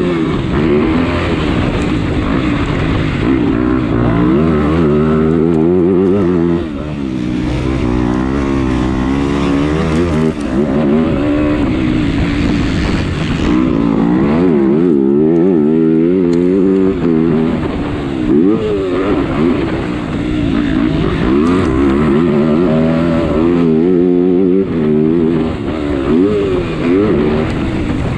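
Motocross bike engine heard from on board, revving hard and pulling back over and over as the rider works the throttle and gears around the track, its pitch rising and falling repeatedly. The throttle comes off briefly about six seconds in.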